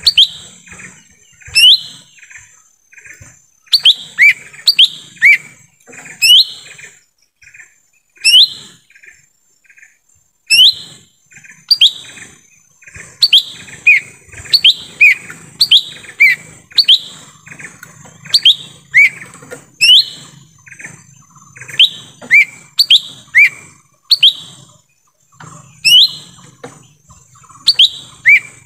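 Cucak ijo mini (lesser green leafbird) calling: short, sharp notes that sweep upward, given in quick runs of two to four with brief pauses between.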